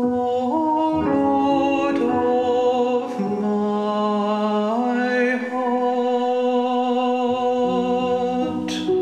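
A hymn sung slowly in long held notes over sustained chords, the notes changing in slow steps.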